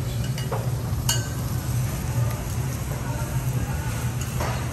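Food sizzling on a teppanyaki griddle, an even hiss over a steady low hum, with one sharp clink about a second in.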